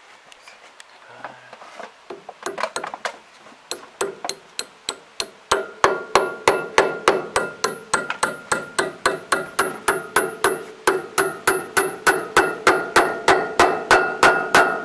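Hand hammer driving a steel key into the keyway of a sprocket hub on a Claas Rolant 46 baler roller shaft. The blows are light and uneven at first, then become a steady run of ringing metal-on-metal taps, about three a second, louder from about five seconds in.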